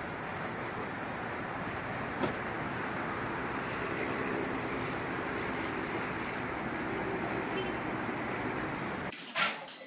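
Steady outdoor traffic and wind noise, an even hiss, with a single click about two seconds in. Near the end it cuts off abruptly and a brief louder sound follows.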